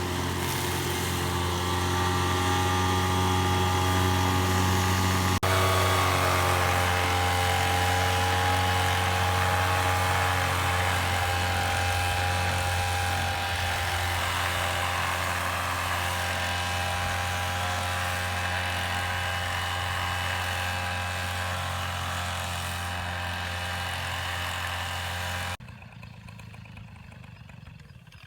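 A small engine running steadily at a constant speed, then stopping abruptly near the end.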